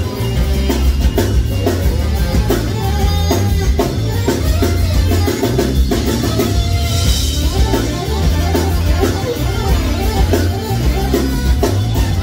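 Live band music: a saxophone playing over a drum kit and a heavy bass line.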